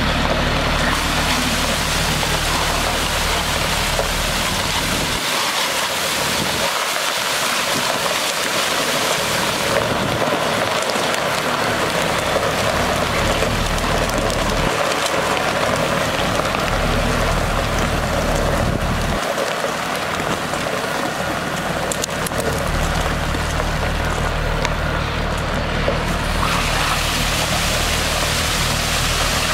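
Water truck's PTO-driven pump spraying water from the rear spray heads onto gravel, a steady hiss, over the low drone of the truck's Caterpillar C7 diesel engine pulling in first gear; the low drone drops out briefly a few times.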